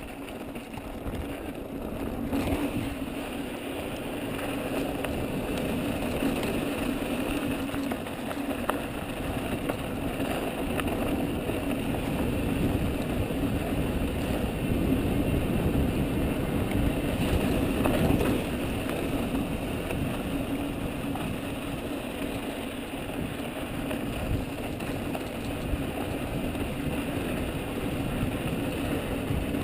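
Wind rushing over the camera microphone and the tyres of a Mojo HD mountain bike rolling over a loose dirt trail, a steady rumble with scattered small rattles and clicks from the bike. It gets louder about two seconds in as the bike picks up speed.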